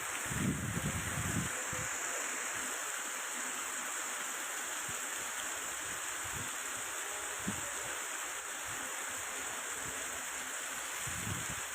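Steady hiss of heavy rain and running water, with a cluster of low thumps about a second in and a couple more later.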